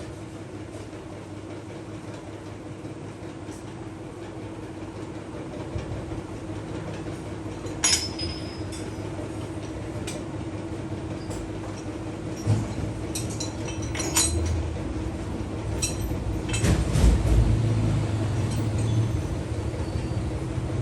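Machine running with a steady hum at one pitch, with sharp metal clinks every few seconds.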